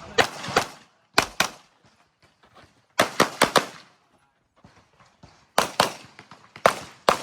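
Handgun shots fired in quick strings during an IPSC stage: about a dozen sharp cracks, mostly in fast pairs, with a run of four about three seconds in and short pauses between groups.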